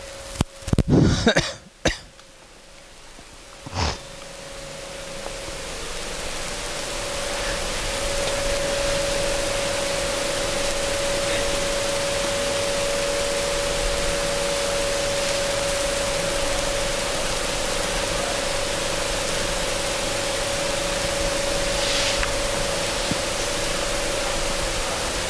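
A person coughing, several quick coughs in the first two seconds and one more a couple of seconds later, then a steady hiss of room noise with a faint steady hum.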